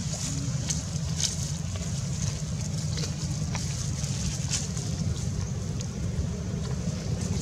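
Steady low wind rumble on the microphone, with scattered faint crackles.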